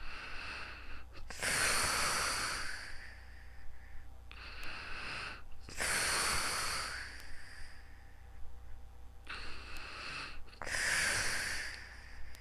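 A sleeping person's slow, heavy, noisy breathing: three breaths about four and a half seconds apart, each a short, softer phase followed by a louder, longer rush of air, with a low steady hum underneath.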